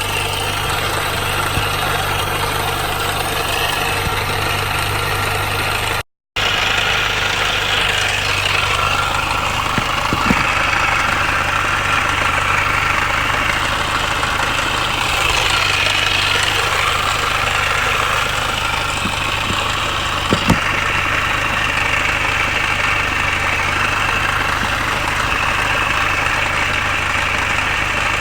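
Supercharged 1.6-litre four-cylinder engine of an R53 MINI Cooper S idling steadily with a rattle that persists after a new timing chain tensioner, timing chain guides and PCV valve; the owner cannot find its source. Two short sharp clicks sound about ten seconds apart.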